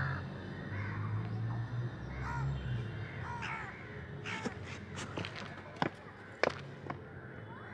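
Crows cawing several times, short harsh calls, over a low steady background hum, with a few sharp clicks about six seconds in.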